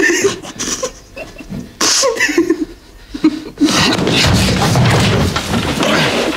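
A woman's short breathy vocal sounds, then, about three and a half seconds in, a sudden loud thud as a body lands on a sofa, followed by continuous rustling and scuffling of a struggle.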